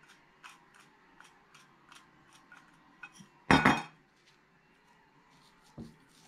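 Pepper shaker with a metal lid being shaken in quick strokes, a short rattling click about three times a second, then set down with one loud knock on the stone countertop about three and a half seconds in. A softer thump follows near the end.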